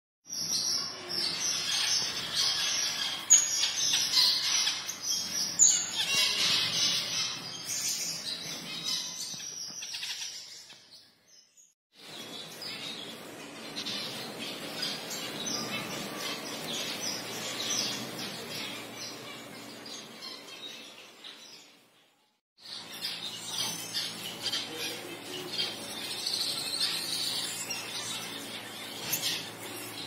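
Many captive finches chirping and twittering together in a dense, busy chatter of high calls. The sound drops out briefly about eleven seconds in and again about twenty-two seconds in.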